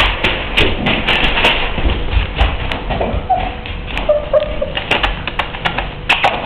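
Four-week-old pit bull puppies giving a few short, high whimpers around the middle, over frequent taps, scratches and rustling.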